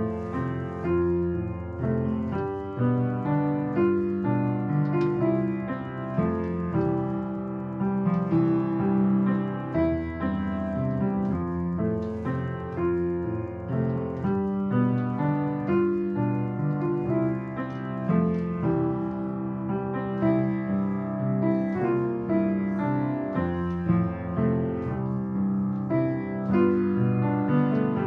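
Solo piano playing a continuous melody over chords.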